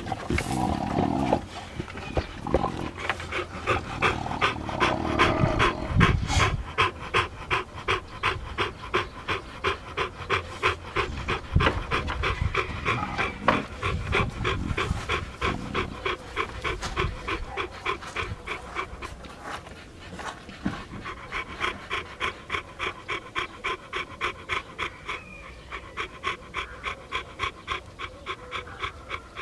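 A pocket American Bully dog panting rapidly and evenly with its tongue out. Over the first few seconds there are louder, irregular sounds of the dog mouthing a rubber ball.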